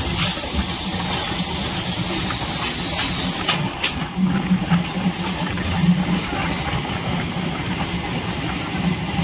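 Suburban EMU electric train running, heard from its open doorway: a steady rumble and hum of wheels on rails with scattered clicks over joints. A loud hiss runs through the first three and a half seconds, and a brief faint high squeal sounds near the end.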